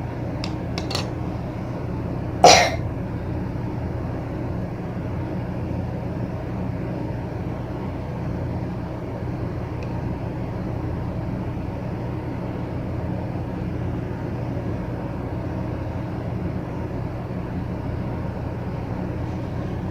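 Steady low background hum, with a few light clicks near the start and one brief, sharp, louder sound about two and a half seconds in.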